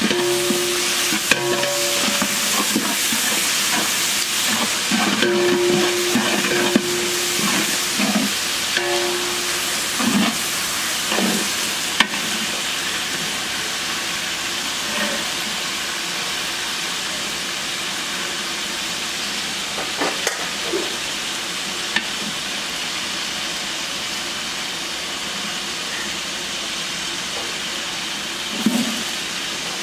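A large batch of sliced onions frying in oil in a big biryani pot: a steady sizzle, with a ladle stirring and now and then knocking against the pot.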